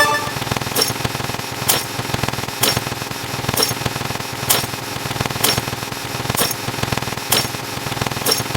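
Sharp clicks at a steady pace of about one a second over a constant low hum, with a short ringing tone at the very start.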